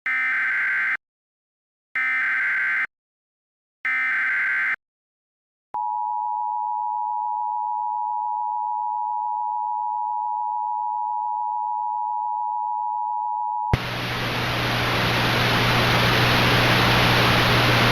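Emergency Alert System SAME header: three one-second bursts of digital data tones about a second apart, followed by the EAS two-tone attention signal, a steady dual tone held for about eight seconds. It then cuts to a loud hiss over a low hum that grows louder toward the end.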